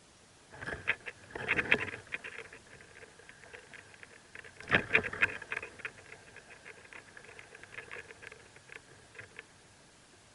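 Mockingbird nestlings stirring in the nest: scratchy rustling and squeaky chatter in two loud bursts, about a second in and again about five seconds in, trailing off into fainter ticking.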